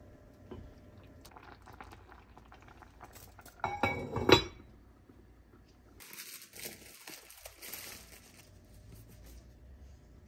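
A spatula stirs and scrapes around an enamelled cast-iron pot of creamy soup, with a short loud clatter of kitchenware clinks about four seconds in. After that comes soft rustling as bread and board are handled.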